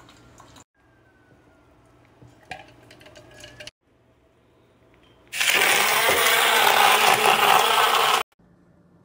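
Portable USB blender running for about three seconds, its blades churning liquid inside the bottle, loud and even, then stopping suddenly. Before it come a few faint clicks from handling the bottle.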